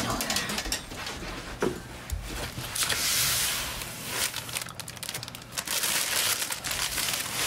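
A cardboard file box is slid off a shelf and rummaged through, the plastic bags packed inside it crinkling in bursts.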